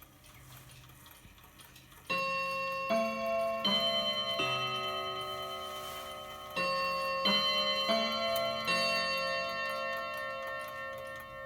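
Mantel clock's hammers striking its chime rods: a group of four ringing notes of different pitch about two seconds in, and a second group of four a few seconds later, each note ringing on over the next. Faint clock ticking before the first notes.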